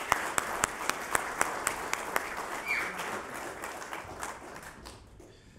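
A group of people applauding, with sharp, evenly spaced claps close by at about four a second standing out over the rest. The applause thins out and dies away near the end.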